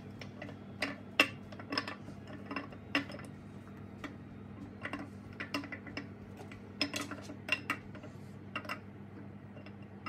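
Camshaft of a 6.0-litre LQ9 V8 being slid out of the engine block by hand, its lobes and journals clinking against the cam bearings in a string of irregular light metal clicks.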